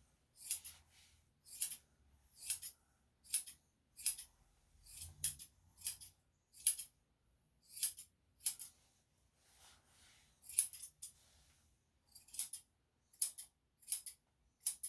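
Grooming scissors snipping a Yorkshire Terrier's hair around the face and eyes: short, crisp cuts about one or two a second, often in quick pairs.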